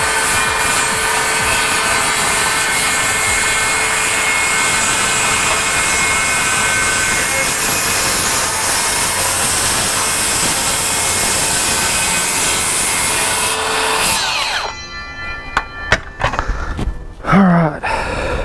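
Circular saw ripping a long cut through a board, running steadily under load. About fourteen seconds in the cut ends and the blade winds down, followed by a few sharp knocks and a brief squeak.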